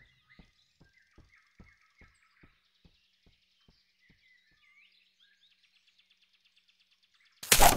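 Quiet animated-forest ambience: faint bird chirps and a faint, regular low ticking about two or three times a second that fades away. Near the end, a sudden loud burst of noise.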